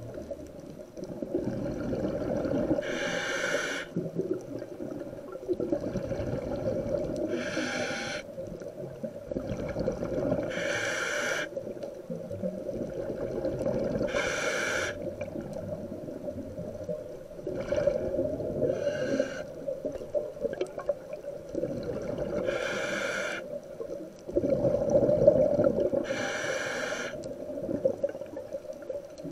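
Scuba diver breathing through the regulator of an OTS Guardian full face mask: a short hiss on each inhale, then a longer rumble of exhaust bubbles on each exhale, in a steady cycle about every four seconds.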